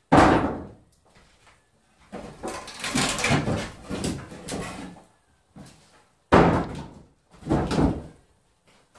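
Wooden boards banging and scraping as old framing is pried and pulled out of a window opening: a sharp bang right at the start, a longer stretch of knocking and scraping, then another sharp bang and a shorter clatter near the end.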